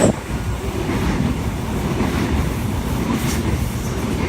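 Sydney Trains Oscar (H-set) double-deck electric train passing along the platform: a steady, loud rumble of wheels on rail, with a sharp click right at the start.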